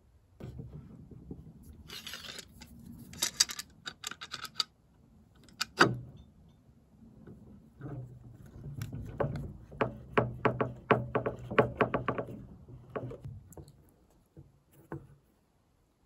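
Irregular knocks, clicks and clatter of hard objects being handled, with a brief hiss about two seconds in. The knocks come thickest between about eight and thirteen seconds in, then thin out.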